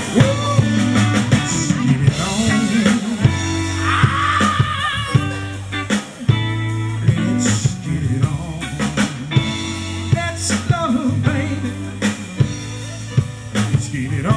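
Live R&B band playing: a male lead singer over electric bass, drum kit and keyboard, with a short break in the playing about six seconds in.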